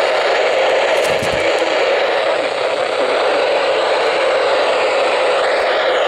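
Weather radio receiver hissing with steady, loud static, the sign of weak, noisy reception of the NOAA Weather Radio signal. A brief low thump just over a second in.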